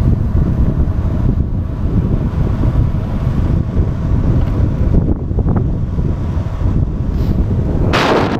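Wind buffeting the microphone during a fast downhill ride: a loud, steady low rumble, with a short hiss about eight seconds in.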